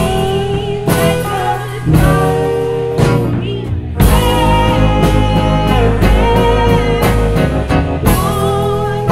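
Live rock band playing: a woman sings with a wavering vibrato over electric guitars and a steady low accompaniment.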